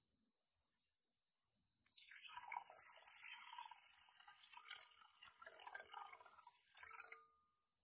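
Water poured from a jug into a glass bowl of dry red lentils, splashing and trickling; it starts about two seconds in and stops shortly before the end.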